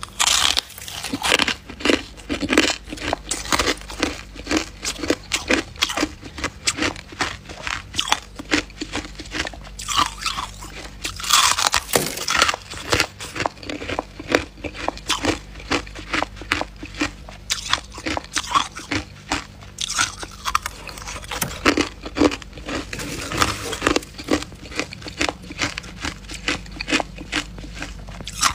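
Fluffy freezer frost being bitten and chewed: rapid, irregular crunching, several crunches a second.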